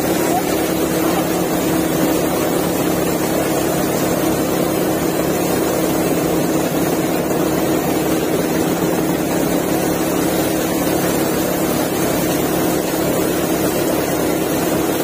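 Wheat thresher running: a loud, even machine drone with a steady low hum, while it drops threshed grain from its outlet chute.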